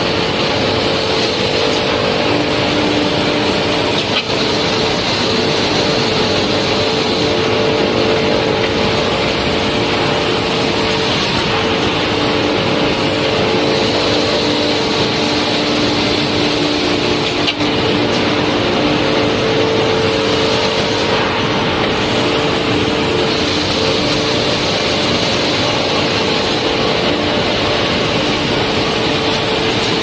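Glass grinding and polishing machine running: a loud, steady hum with a few constant tones over an even hiss, and two brief knocks, one about four seconds in and one a little past halfway.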